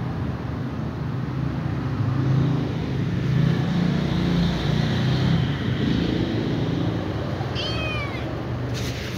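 Ginger kitten giving a short, high meow near the end, over a steady low rumble.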